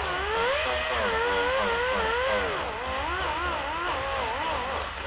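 Dual-action (DA) sander with 80-grit paper sanding a plastic part, its motor whine rising and falling in pitch as the speed changes under hand pressure. It is being kept at a slow speed so the plastic does not melt.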